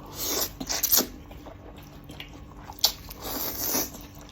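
A person eating rice noodles close to the microphone: wet chewing and mouth sounds in several short bursts, the longest a little before the end.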